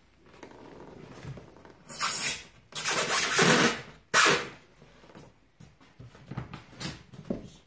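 Gloved hands rubbing and scraping on foam board, in a few loud bursts about two to four seconds in, then fainter scuffs.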